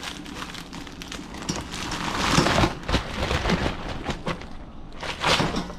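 Black raspberries tipped into the stainless steel fruit basket of a Mehu-Liisa steam juicer, a dense rain-like patter of small hits, loudest about two seconds in and again near the end.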